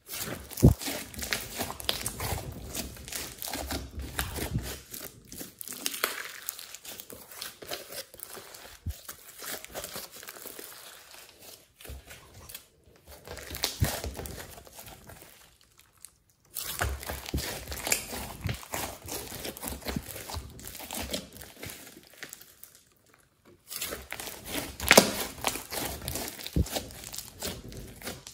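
Thick glossy slime mixed with clay and glitter being kneaded, squeezed and stretched by hand, giving a dense, irregular wet crackling and clicking. It breaks off briefly a few times.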